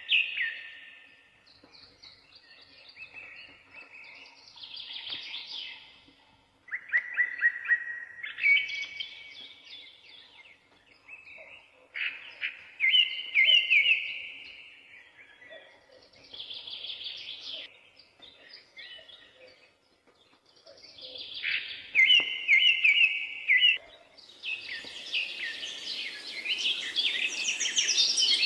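Songbirds singing: loud whistled phrases every few seconds with softer chirps between. About four seconds before the end, a steady hiss of outdoor background noise rises beneath them.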